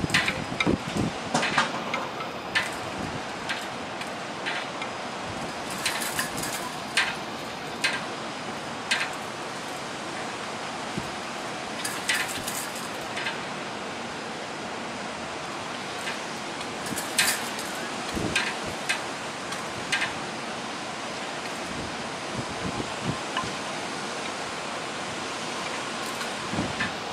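Steady rush of hurricane wind and rain, with scattered sharp taps and clicks, in bunches near the start and around a quarter, half and two-thirds of the way through.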